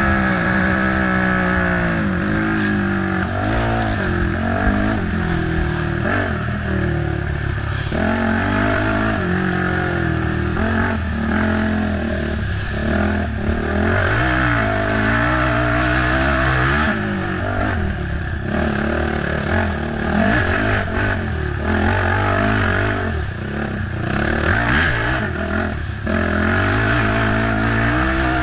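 Racing ATV engine under hard load, its pitch climbing and dropping again and again as the throttle is worked through the trail, with rattling and scraping underneath.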